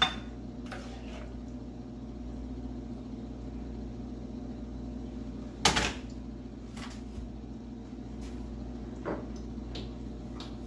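A serving spoon knocking against a frying pan while food is scooped out, with one louder knock about six seconds in as the pan is set down on the electric stove. A steady low hum runs underneath.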